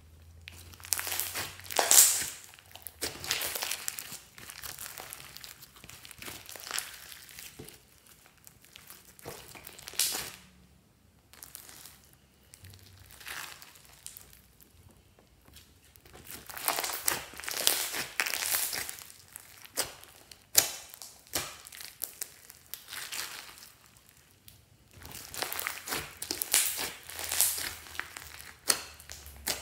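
Fluffy pink slime studded with foam beads being stretched, squeezed and pressed by hand, giving bursts of fine clicking and popping with quieter pauses between.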